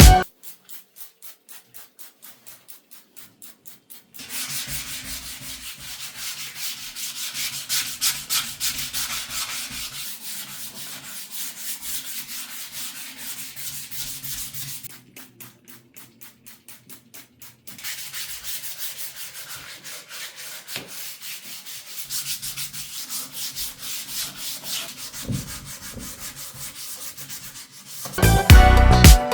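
Hand sanding of a part: a scratchy rubbing, with runs of quick, even strokes, about five a second, near the start and again around the middle.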